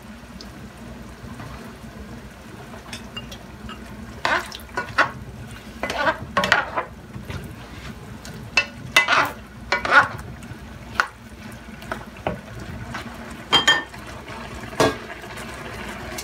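A spatula stirring a sauté pan of vegetables cooking in coconut milk, in irregular scraping strokes starting about four seconds in, over a steady sizzle from the pan.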